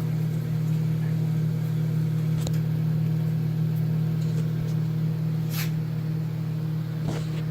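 Microwave oven running with a steady low hum, heating slime that is smoking inside. There are two faint clicks, a couple of seconds apart.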